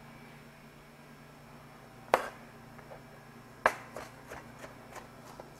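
Chef's knife chopping raw shrimp on a plastic cutting board: two sharp knocks of the blade against the board about a second and a half apart, starting about two seconds in, then a run of lighter, quicker taps.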